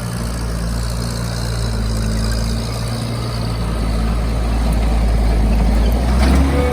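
Case 445CT compact track loader's diesel engine running while the machine pushes and blades dirt: a steady low drone that grows gradually louder and rises slightly in pitch near the end.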